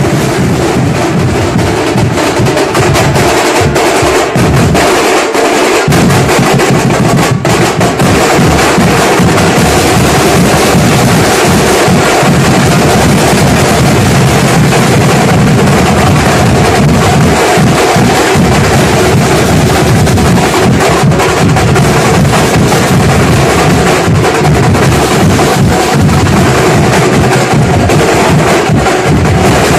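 A group of drummers, snare-type drums among them, playing together loudly and without pause.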